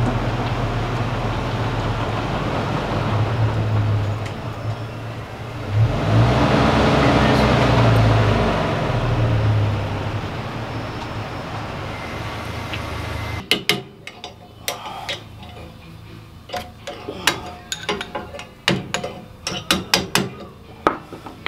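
A steady low rumble that swells in the middle and then cuts off. It is followed by a rapid, irregular string of sharp metal taps from a small hammer striking the leaf-spring eye to knock out the spring bushing.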